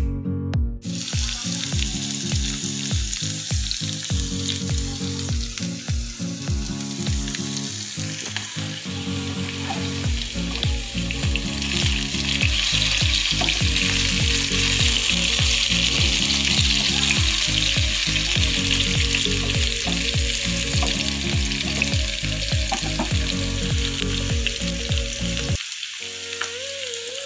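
Cubed potatoes and jengkol frying in hot oil in a pan: a steady sizzle, loudest in the middle, with background music underneath.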